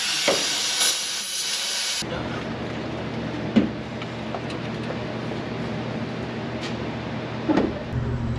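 An aerosol spray can hisses for about two seconds, sprayed into the 1953 Chevrolet cabover's inline six-cylinder engine. The hiss cuts off and a steady low mechanical drone from the engine takes over, with a couple of short clanks and knocks.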